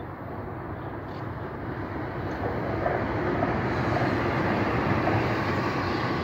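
SNCF Z 27500 electric TER multiple unit passing at speed: wheel-on-rail rumble swelling to its loudest about five seconds in, then beginning to fade as the train moves away.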